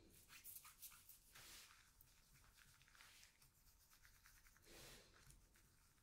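Faint rustling and sliding of paper cards being touched and moved by gloved hands on a tabletop, in a few short soft brushes.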